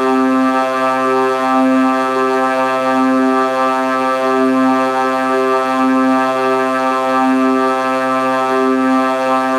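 Vocoder effect producing a steady, droning synthetic tone rich in overtones, with a slow regular swell about once a second.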